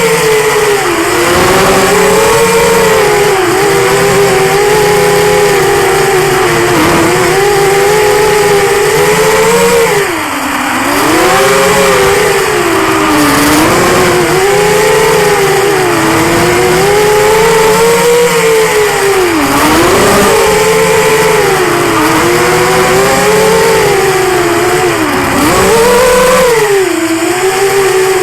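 QAV210 FPV quadcopter's four 2204 2300Kv brushless motors and propellers whining, the pitch constantly rising and falling with throttle, with a few sudden deep drops as the throttle is chopped, about a third of the way in, two-thirds of the way in and near the end. Loud and close, as heard from the camera carried on the quad.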